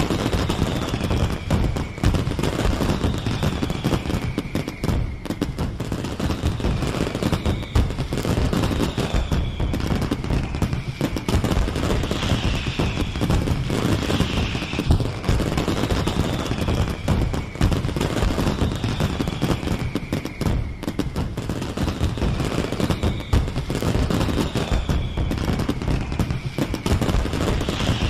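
Fireworks display: continuous rapid crackling and banging, overlaid with a falling whistle about every two seconds.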